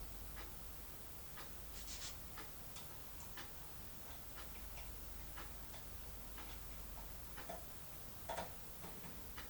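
Faint, irregular small metallic clicks and ticks of a foil-wrapped opening tool being worked inside a Standers pin-tumbler cylinder lock, with a slightly louder cluster of clicks near the end.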